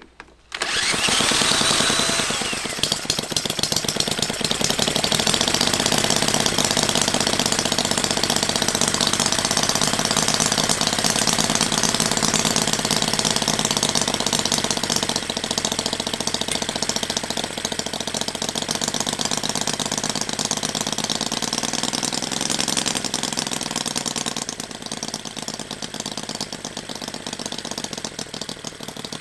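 Small model V-twin petrol engine (a Jerry Howell design) spun up by an electric drill, with a brief rising whine, then firing and running fast with a rapid, even rattling beat. It runs steadily and eases off slightly near the end.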